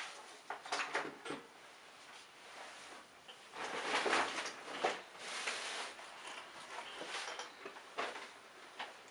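Scraping and rustling handling sounds with a few light clicks, in irregular bursts, the longest about four seconds in.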